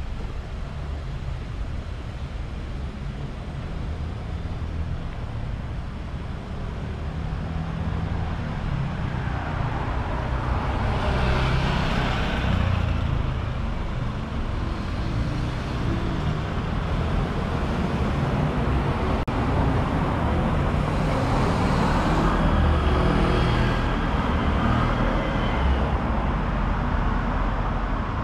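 Street traffic: cars and other vehicles passing close by over a steady low rumble, with two louder passes that swell and fade, one about a third of the way in and one past two-thirds of the way.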